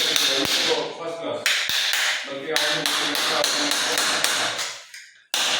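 Repeated hard taps on newly laid floor tiles and a cement-set floor-waste grate, checking for hollow spots under the tiles.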